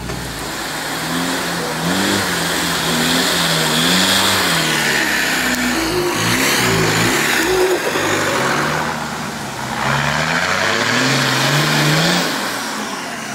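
Off-road 4x4 engines revving up and down under load, the pitch rising and falling again and again.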